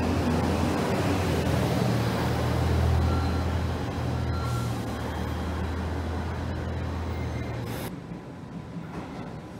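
JR Central HC85 hybrid diesel limited express pulling out past the platform, a steady low drone from its engine and running gear as the cars go by. About eight seconds in it cuts off suddenly, leaving quieter station background.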